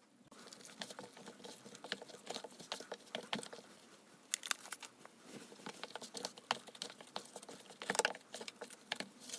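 A gloved hand mixing raw chicken wings into a spice rub in a plastic tub: quiet, irregular sticky clicks and crackles of meat and glove.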